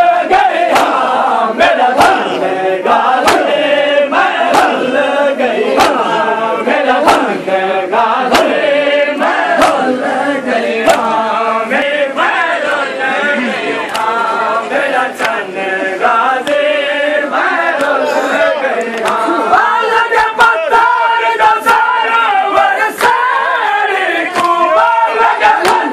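A crowd of men chanting a Muharram noha in unison, with sharp rhythmic slaps of matam chest-beating roughly once a second.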